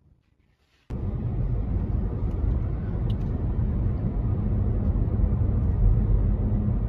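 A car driving: a steady, loud low rumble of engine and road noise that cuts in suddenly about a second in.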